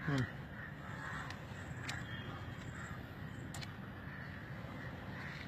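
A bird call with a short falling pitch right at the start, over steady background noise, with a few faint clicks.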